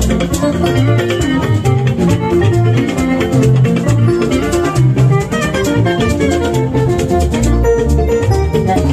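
Band music led by plucked guitar lines over a strong bass line.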